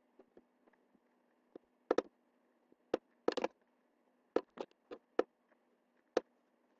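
Computer mouse buttons clicking: about ten short, sharp clicks at irregular intervals, some in quick pairs or a rapid cluster about three seconds in, over a faint steady low hum.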